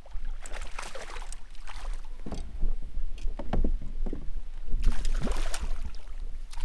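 Water sloshing and splashing around a plastic kayak, with irregular knocks of gear on the hull, as a hooked bass is played to the kayak's side. The splashing is strongest about five seconds in, as the fish reaches the boat. A low steady rumble runs underneath.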